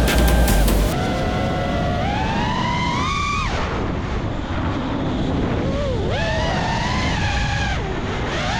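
FPV quadcopter's brushless motors whining, the pitch climbing and dropping repeatedly as the throttle is worked. A loud low rumble stops about a second in.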